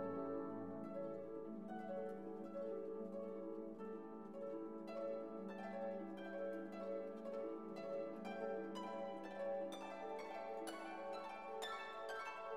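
Background instrumental music: plucked string notes over held tones, the plucking getting busier in the second half.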